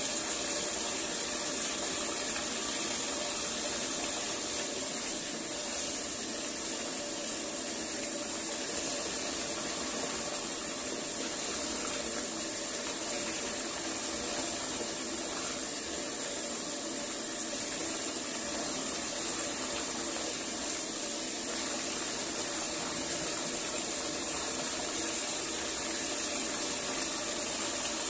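Water running steadily from a bathtub faucet into the tub.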